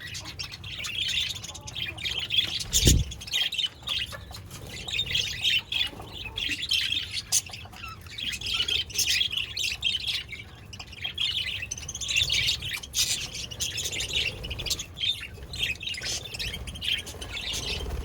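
Budgerigars chirping and chattering continuously, several birds at once, with a single low thump about three seconds in.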